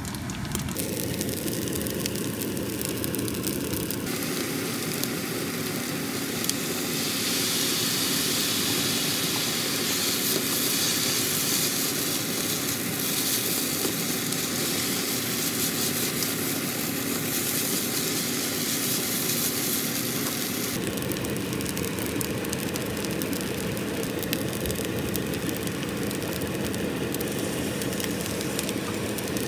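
Fried rice with mixed vegetables sizzling in a frying pan as it is stirred and tossed with a spatula, over a steady drone. The hiss is stronger through the middle stretch.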